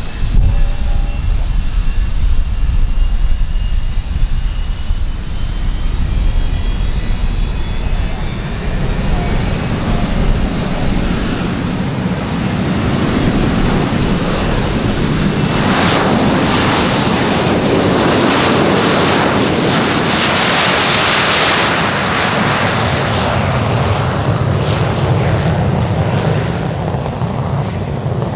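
Two Pratt & Whitney JT8D-17 turbofans of a Boeing 737-200 running loud, with a deep rumble and a high whine that falls in pitch over the first several seconds. About halfway through the engine noise swells into a loud, crackling jet roar that holds to the end.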